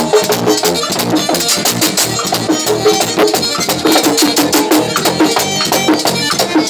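Live merengue típico band playing: button accordion over a two-headed tambora drum, congas and electric bass.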